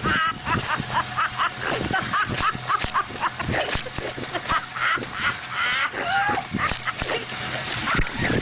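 A small dog yapping in quick, high barks, about three a second, stopping a little before the end.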